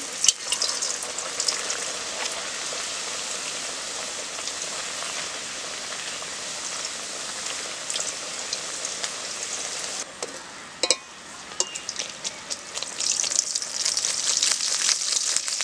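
Pea-stuffed kochuri deep-frying in hot oil in a metal wok, a steady sizzle, with a few clicks of the metal spatula against the wok. The sizzle drops briefly about ten seconds in and then comes back louder near the end.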